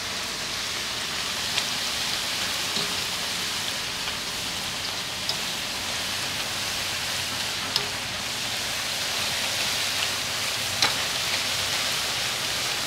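Corn tortilla pieces deep-frying in hot oil: a steady sizzle with a few scattered small pops, as they are turned with a wire skimmer until golden.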